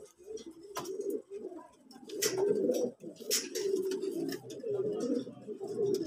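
Racing pigeons cooing, several low wavering calls overlapping, with a few sharp clicks among them.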